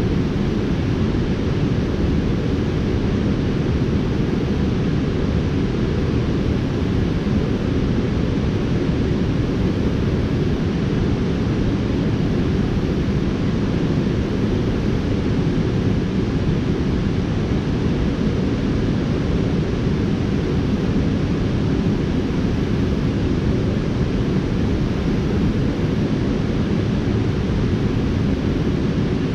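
Water spilling over a low river dam: a steady, deep rushing noise with no breaks.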